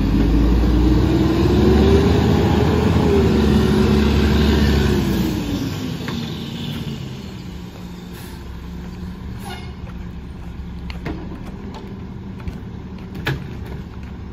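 Mack LE rear-loader garbage truck's diesel engine revving as the truck pulls away, its pitch climbing over the first two seconds, holding, then dropping and fading about five seconds in. After that a quieter steady engine hum from the truck farther off, with a few faint clicks.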